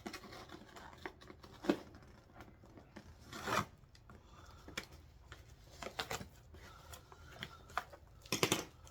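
A parcel of kitchenware being opened by hand: scattered rustling, scraping and tearing of packaging, with a few louder knocks, a short run of them just before the end.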